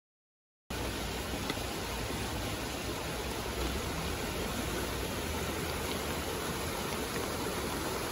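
Fast, muddy floodwater rushing steadily down a small river swollen by torrential rain. It starts abruptly just under a second in.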